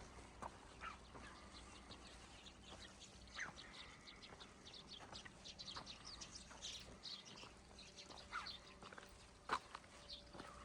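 Small birds chirping: a quick run of short, high chirps in the middle, with a few scattered clicks around them.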